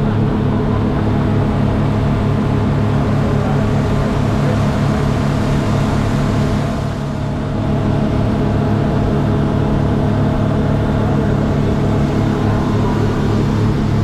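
An engine running steadily at constant speed, a loud low drone that holds one pitch, dipping briefly in loudness about halfway through.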